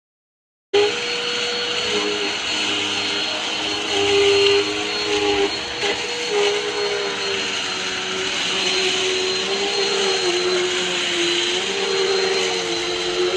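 Dirt Devil Endura Lite bagless upright vacuum cleaner running: a steady motor whine whose pitch wavers slightly, over a rushing hiss of air. It cuts in abruptly about a second in.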